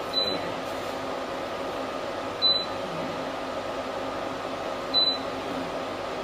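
Soprano Ice laser machine giving three short high beeps about two and a half seconds apart as its touchscreen is pressed, over a steady fan hum.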